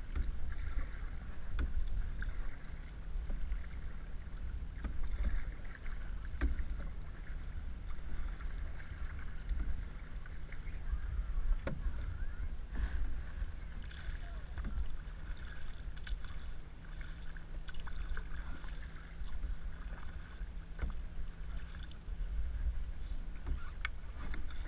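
Canoe paddles dipping and pulling through lake water, with small splashes and occasional short knocks. Wind rumbles on the microphone throughout.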